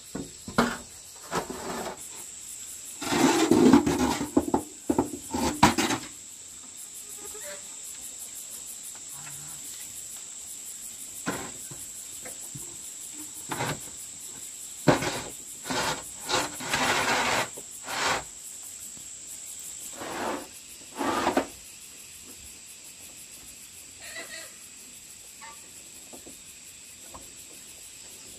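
Insects making a steady high-pitched drone, with irregular knocks, scraping and rustling from hands-on building work over it, the loudest cluster about three to six seconds in.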